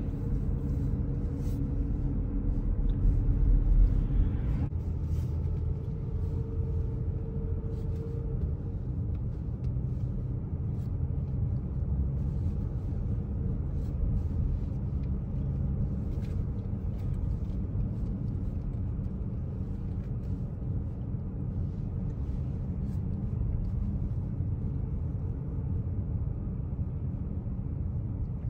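Car road noise heard from inside the cabin while driving: a steady low rumble of tyres and engine. A heavier low rumble for the first four seconds or so cuts off suddenly.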